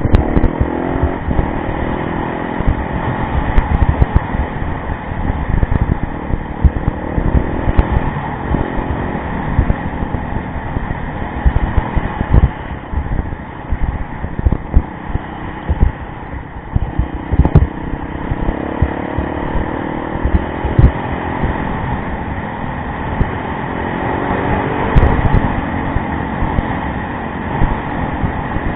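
Yamaha rally motorcycle engine running under way, its pitch rising and falling with the throttle over constant low thumps and buffeting.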